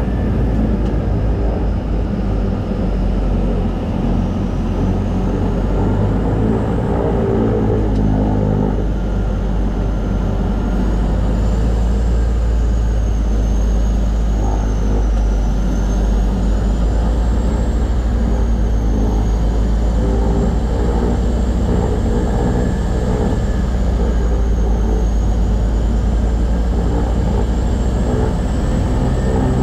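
Cabin noise of a DHC-6-300 Twin Otter floatplane slowing on the water after touchdown: the steady drone of its Pratt & Whitney PT6A-27 turboprop engines and propellers, with a high turbine whine wavering in pitch. Water spray rushes off the floats, easing after the first several seconds.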